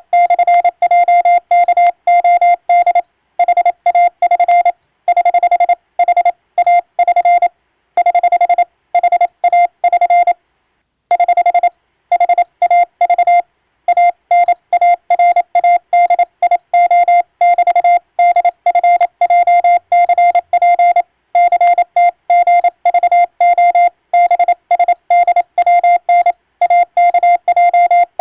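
Morse code sent with an electronic keyer: one steady beep tone switched on and off in fast dots and dashes, with short pauses between letter groups. It is English-language radiotelegram text being keyed as sending practice for the radiotelegraph operator's Morse exam.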